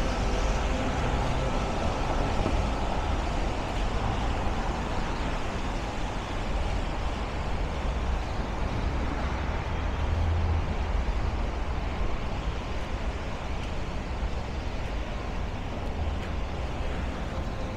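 Steady street traffic on a wet city avenue: vehicles running and passing, with a low rumble and the hiss of tyres on rain-wet pavement.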